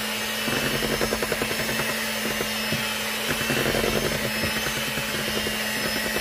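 Electric hand mixer running steadily, its beaters whipping cake batter in a metal bowl, with a fast ticking and scraping where the beaters strike the bowl.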